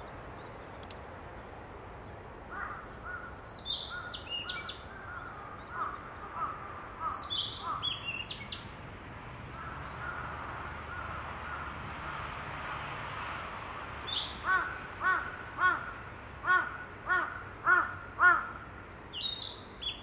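Narcissus flycatcher singing short, high phrases every few seconds, among other birds calling. In the last third another bird gives a loud run of about eight harsh, repeated calls.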